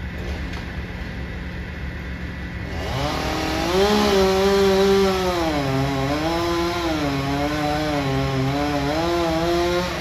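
Chainsaw starting up about three seconds in and cutting wood, its engine pitch dropping under load and picking up again several times before it stops near the end. A steady low engine drone runs underneath.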